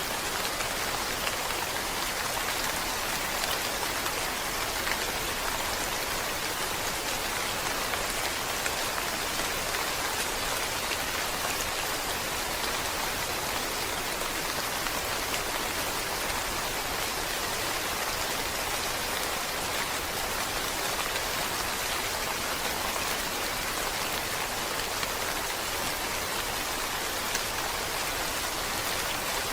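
Steady rain falling, a constant even hiss of many drops with no change throughout.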